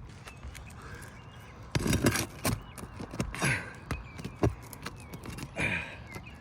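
Irregular sharp knocks and short scrapes of a pry tool being worked under a stuck asphalt shingle to break it loose, starting about two seconds in.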